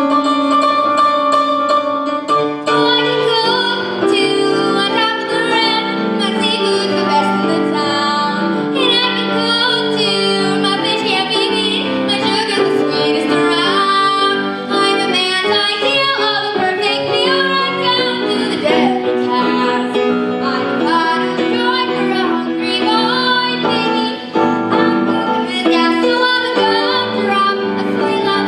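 A female singer performs a show tune with piano accompaniment. The piano plays alone for the first couple of seconds, then the voice comes in, with vibrato on the held notes.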